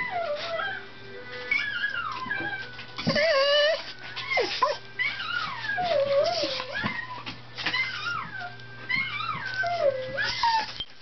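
A recorded dog 'singing': drawn-out howling, whining notes that slide up and down in pitch, one phrase after another every second or two, with music behind.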